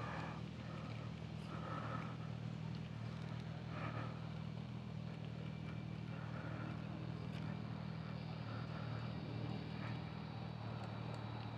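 Radio-controlled rock crawler's electric motor and gearbox whirring faintly in short bursts as it crawls over rocks, over a steady low hum.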